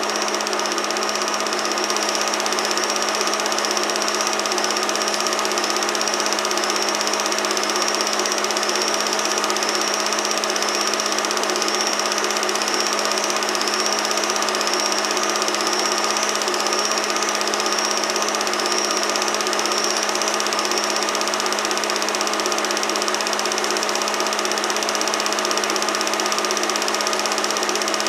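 Film projector running a reel of home movie film: a steady mechanical whir with a constant hum that does not change.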